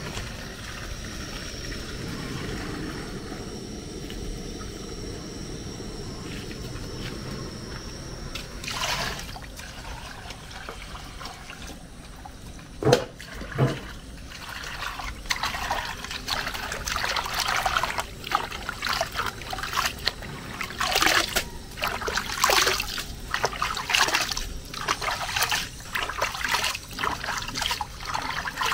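Jute leaves being washed by hand in a large aluminium basin of water: over the second half, repeated splashing and dripping as handfuls of wet leaves are stirred and lifted out. Two sharp knocks come a little before the splashing starts, and a thin steady high whine runs through the first third.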